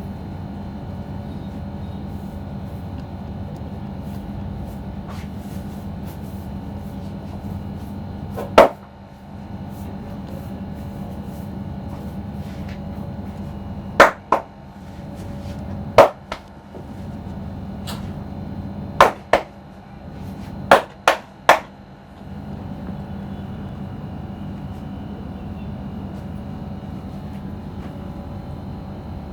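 About nine sharp, loud cracks from a head and neck massage, the first alone, then mostly in quick pairs and one run of three, over a steady background hum.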